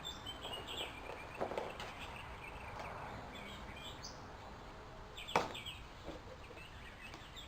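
Small birds chirping in the background over steady outdoor noise, with a brief sharp sound about five seconds in.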